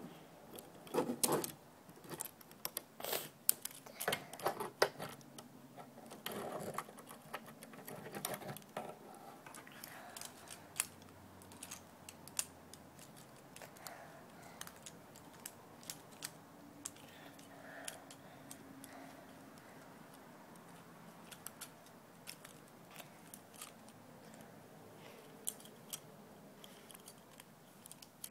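Plastic parts of a Transformers Bumblebee toy clicking and snapping as they are folded and pushed into place by hand: a quick run of sharp clicks over the first ten seconds or so, then scattered clicks.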